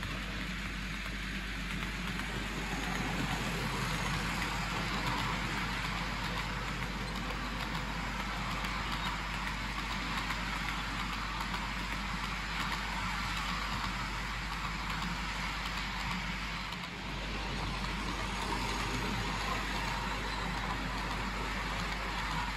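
OO gauge model train running on the track: a DC-powered locomotive and TEA oil tanker wagons rolling along with a steady whirring hiss that swells as the train comes closer and dips briefly near the end, over a constant low hum.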